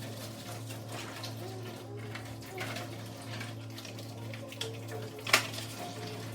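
Water running from a tap during dishwashing, with a sharp clink about five seconds in.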